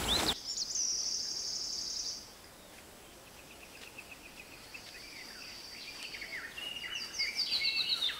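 Outdoor insect and bird ambience. A high, steady insect drone lasts about two seconds, then fades to faint repeated chirps, and bird calls grow busier near the end.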